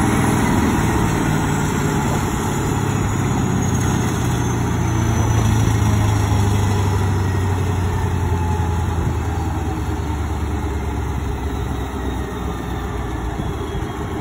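1985 Jones tub grinder running with its Caterpillar diesel engine going steadily, the tub turning and grinding. A faint high whine slowly falls in pitch over the first several seconds.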